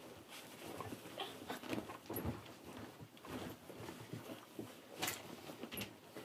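Bedding and pillow rustling irregularly as a boy tosses and turns in bed, with a few short huffs and grunts.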